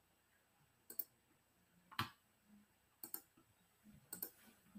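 Near silence with four faint, short clicks about a second apart, some of them doubled: computer mouse clicks.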